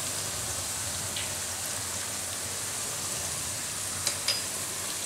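Cut okra frying in hot oil in a kadai, a steady sizzle, with a couple of short clicks about four seconds in.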